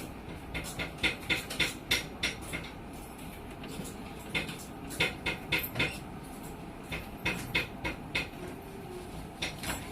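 Light clicks and taps in small irregular clusters over a steady low hum.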